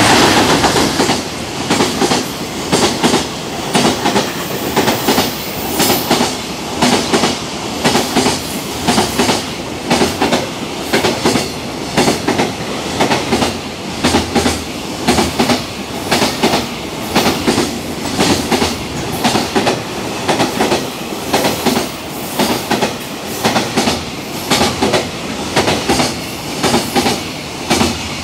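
Freight train running through a station at speed: a steady rumble with a regular clickety-clack of wagon wheels over rail joints, loudest in about the first second.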